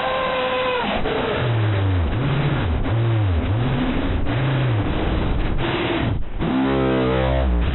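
Emergency alert system alarm, loud and heavily distorted. A steady high two-tone cuts off about a second in. Low tones then swoop up and down several times, and near the end a buzzy tone settles into a low drone.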